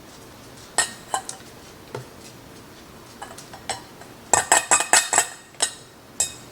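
A utensil clinking against a strainer and a glass pint jar as strained beans are spooned in for canning: a few scattered clinks, then a quick run of sharp clinks about four to five seconds in.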